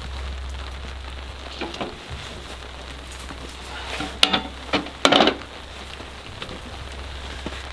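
Light rain falling steadily, with a few sharp knocks or clatters about four and five seconds in.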